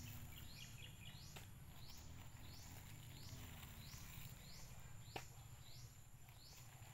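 Quiet outdoor ambience: a high chirp repeating evenly, about three every two seconds, over a low steady rumble. Two faint clicks come about one and a half and five seconds in, as the ripe marang fruit is pulled apart by hand.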